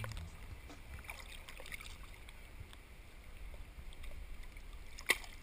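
Faint sea water lapping and sloshing around a waterproof camera held at the surface, with scattered small clicks and one sharper click about five seconds in.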